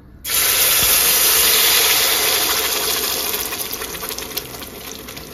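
Blended red pipián sauce hitting hot oil in a clay cazuela: a loud sizzle that starts suddenly a moment in, then slowly dies down with scattered crackles as the sauce fries.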